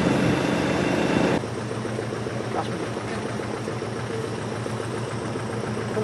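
A loud, busy mix cuts off abruptly about a second and a half in, leaving an off-road vehicle's engine running steadily.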